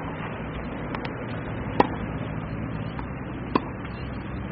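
Tennis ball struck by a racket twice, the two sharp hits almost two seconds apart, with fainter ball bounces between them, over a steady background hum.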